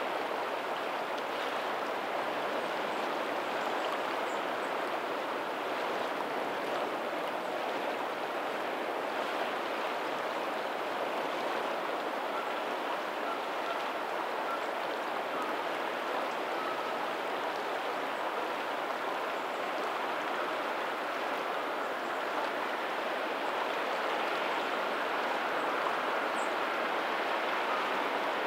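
Lagoon tidal outflow running steadily out to the sea, a continuous rush of flowing water, with faint ocean waves behind it.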